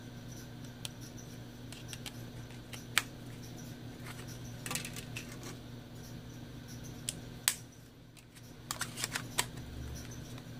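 Small plastic clicks and snaps from a Samsung Galaxy J1 mini's battery and back cover being handled and pressed into place, with a quick run of snaps near the end as the cover's clips catch. A steady low hum runs underneath.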